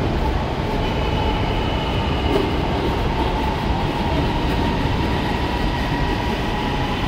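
Electric metro train pulling in along an elevated platform and slowing, a steady rolling rumble with a thin high whine that sets in about a second in.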